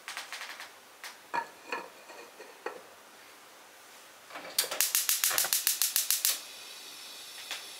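A few light ceramic knocks as the lid is set on a clay donabe pot, then a gas stove's igniter clicking rapidly for about a second and a half, several clicks a second, until the burner catches and settles into a steady hiss.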